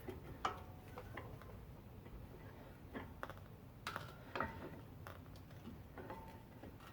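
Steel pry bar levering a brake pad against a four-piston front brake caliper to push the pistons back: scattered light metallic clicks and taps, a few ringing briefly.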